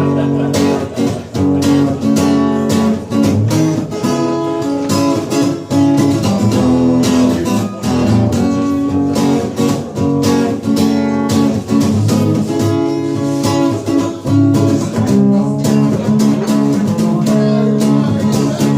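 Strummed acoustic guitar playing a rhythmic instrumental introduction, with steady repeated chords and a sharp regular beat.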